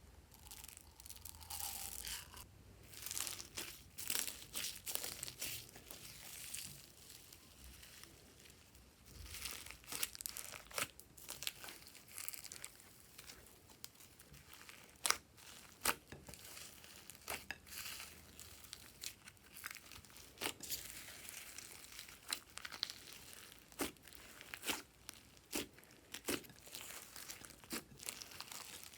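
Hands kneading and stretching slime, with irregular crackling and many sharp popping clicks.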